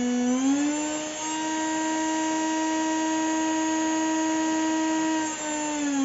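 Small 21-volt DC motor, a cordless-screwdriver motor, running under a PWM speed controller, giving a steady whine. Its pitch rises over the first second as the speed is turned up, holds level, then begins to fall near the end as the speed is turned back down.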